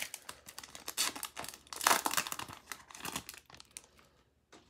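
Pokémon card booster pack's foil wrapper being torn open and crinkled: a dense run of crackles, loudest about two seconds in, dying away near the end.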